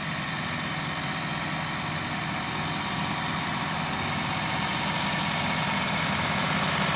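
John Deere 6175R tractor's six-cylinder diesel engine running steadily, slowly growing louder.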